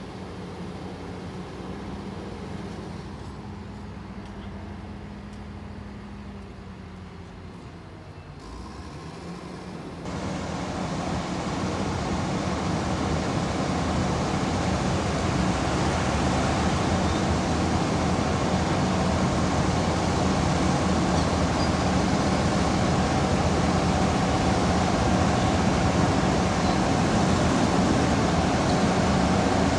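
Heavy diesel engine running steadily. Its note dips briefly about eight seconds in, then it revs up about ten seconds in and keeps running louder and harder.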